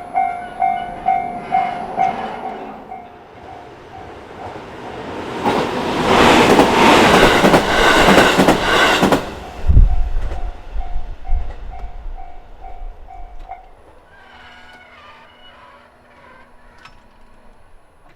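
Japanese railway crossing warning bell ringing in quick, even pulses, about two and a half a second. A JR Minobu Line train then runs loudly over the crossing for about four seconds, with a heavy thump as it clears. The bell rings on after the train and stops about three-quarters of the way through.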